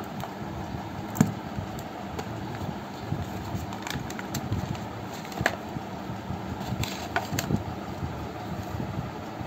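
Steady background hiss with a few sharp clicks and taps from hands handling the phone and its packaging. The loudest click is about a second in, another comes about halfway, and a small cluster follows near seven seconds.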